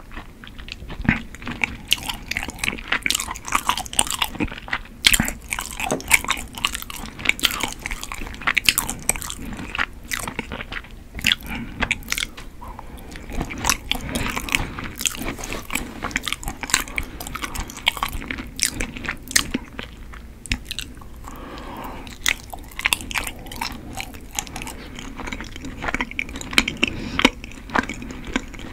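Close-miked chewing and biting of chewy Korean rice cakes (tteok), with a dense run of small, irregular mouth clicks.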